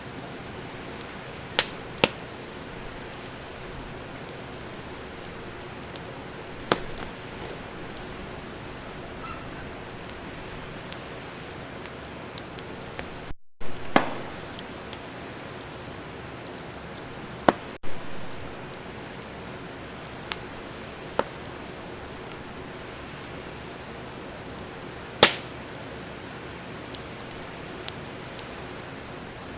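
Wood fire crackling: a steady hiss with irregular small ticks and a few loud, sharp pops every few seconds.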